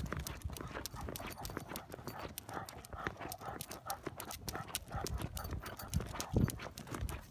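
Two leashed dogs walking on a concrete sidewalk: quick, irregular clicks of their claws and collar tags, with a dull thump about six seconds in.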